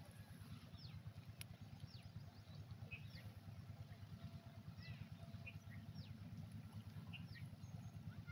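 Small birds calling: short, quick downward-sweeping chirps repeated every second or so, with a few shorter notes between, over a faint steady low rumble.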